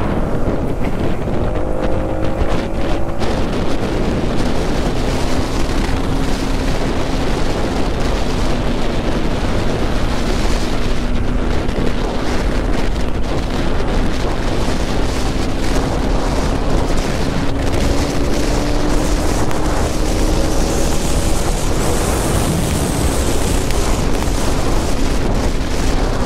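Heavy wind buffeting on the microphone over the steady drone of a Bajaj Pulsar NS200's single-cylinder engine cruising at road speed, its pitch drifting slowly up and down.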